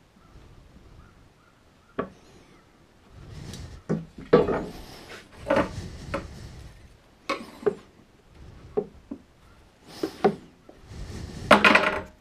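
Plywood parts and steel squares being handled and fitted: scattered knocks and clicks with short scraping rubs of wood and metal, the longest and loudest scrape near the end.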